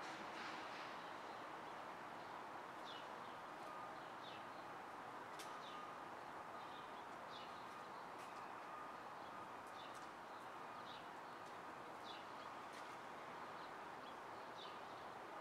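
City street ambience: a low, even hum of distant traffic with small birds chirping about once a second, and a faint steady high tone through the middle.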